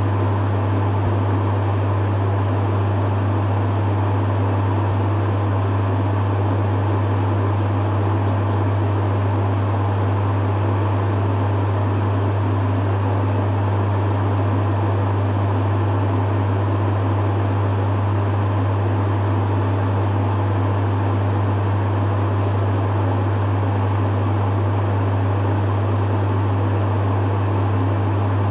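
Dehumidifier running steadily: a strong low hum under an even fan-like whoosh, with no change in level.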